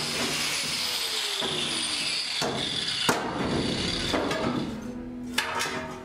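Handheld angle grinder cutting through the corrugated steel wall of a shipping container. Its pitch falls early on as it winds down. A few sharp knocks follow, and the sound quietens near the end.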